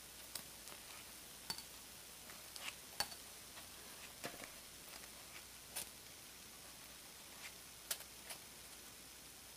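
Bamboo skewers tapping and scraping against a takoyaki maker's plate as cooked takoyaki balls are lifted out of their wells: light, irregular clicks, the sharpest about three seconds in and near the end, over a faint steady hiss.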